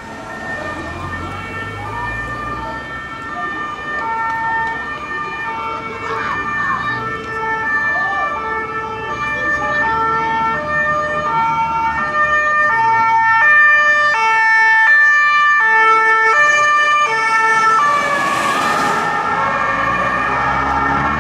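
Police car's two-tone siren alternating between a high and a low note, growing louder as the car approaches. It peaks with a brief rush of tyre and engine noise as the car passes near the end.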